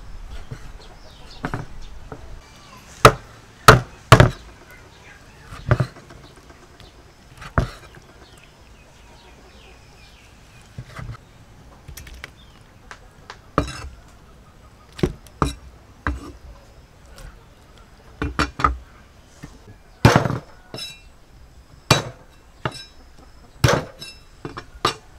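Cleaver striking a round wooden chopping block in irregular single chops: about fifteen sharp knocks, a cluster early, a lull near the middle, then more through the second half.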